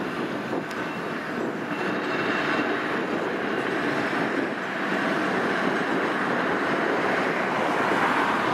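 Blackpool Balloon double-deck electric tram running on its rails, a steady rumble that grows gradually louder as it approaches and passes close by.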